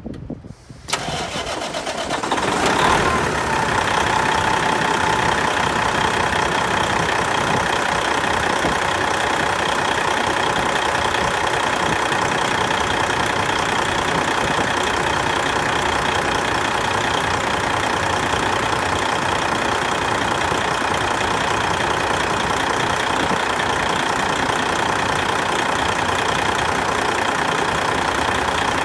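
Detroit Diesel Series 60 12.7-litre inline-six diesel engine cranked and started about a second in, building up over the next two seconds and settling into a steady idle with a constant high whine over the engine's running.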